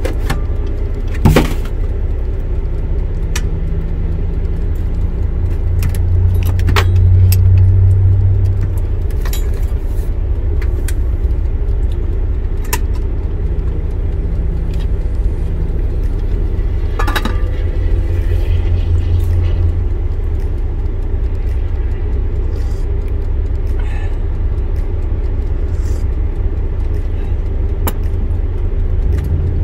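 Steady low rumble of a diesel truck engine heard inside the cab, swelling a few times, with scattered clicks and rattles and one sharp click about a second in.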